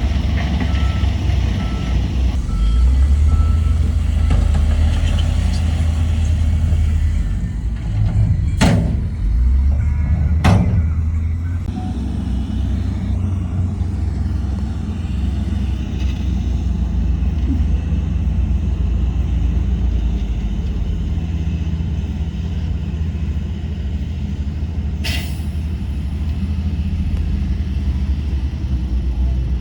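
Heavy diesel earthmoving machinery running steadily with a deep rumble, a reversing beeper sounding in the first few seconds. Three short sharp bursts cut through, two close together about a third of the way in and one near the end.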